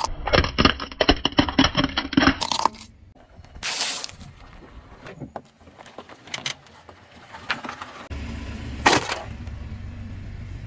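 Car tyre rolling over small plastic toy motorcycles: a quick run of cracks and snaps for about two seconds. Then a quieter stretch as the tyre squashes soft gummy worms, with a few faint snaps, and one loud crunch near the end.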